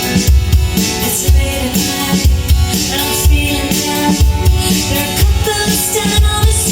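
A recorded song with a steady kick-drum beat, about one deep thump a second, played back through a Sony TA-D505 integrated amplifier and its speakers.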